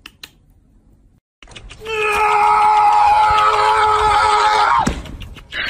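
A long, loud, high-pitched cry held at one pitch for about three seconds, then falling away sharply in pitch. Faint light clicks come before it in the first second.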